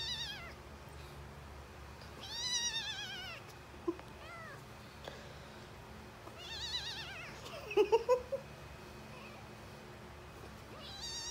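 A very young tabby kitten mewing in high, wavering cries, several times. About eight seconds in come a few short, louder, lower sounds.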